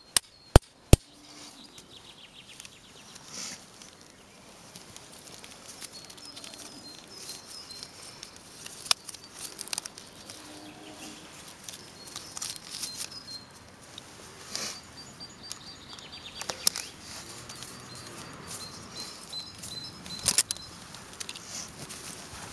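Two last sharp blows on a stake being driven into the ground, about half a second apart just after the start, then soft handling rustles and occasional clicks as a firework candle is fastened to the stake. Birds chirp in the background.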